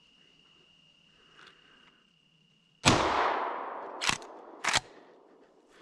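A single shotgun shot about three seconds in, sharp and loud, its echo fading slowly through the woods over the next couple of seconds. Two short sharp clicks follow about half a second apart.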